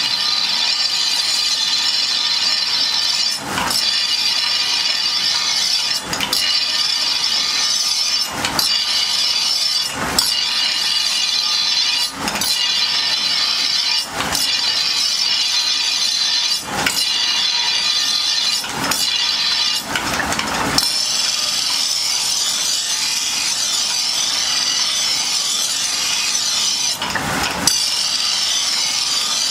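Steel sword blade being ground on a large spinning grinding wheel: a steady, loud, high hissing grind. It breaks off briefly every couple of seconds as the blade is shifted along the wheel.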